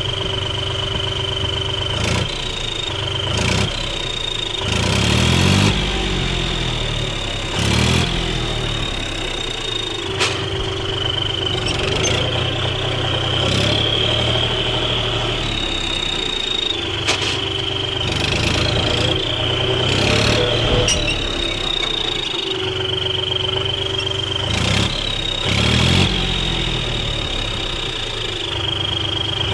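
John Deere 5050D's three-cylinder diesel engine running with a turbo whistle fitted in its exhaust silencer: a steady high whistle rides over the engine. The engine is revved up and back down several times.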